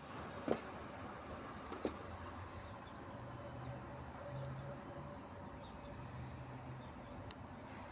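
Faint steady background hum, with two light clicks or knocks about half a second and two seconds in.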